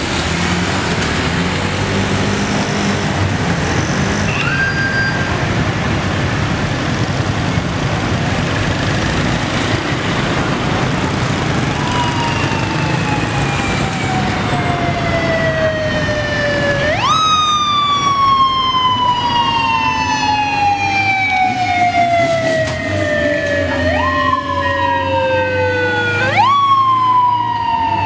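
Steady street traffic of motorbikes and cars. From a little under halfway through, a police escort siren wails: each wail jumps up quickly and falls slowly over several seconds. The wails overlap and grow slightly louder near the end.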